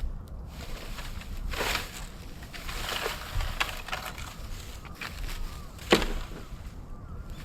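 Moso bamboo and its branches burning in an open fire, crackling with several sharp pops and cracks over a steady hiss; the loudest crack comes about six seconds in.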